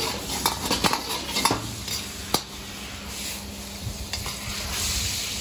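A metal ladle stirring and scraping in a wok of rice cooking down in seasoned broth, with a steady sizzle. The ladle knocks sharply against the wok about four times in the first two and a half seconds.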